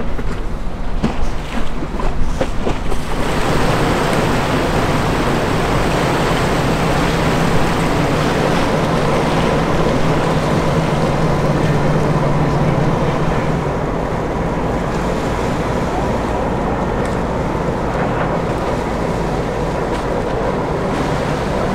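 Steady rush of water and wind on the microphone, with a boat's engine humming under it from about three seconds in until about fourteen seconds in. The first seconds are gusty and uneven.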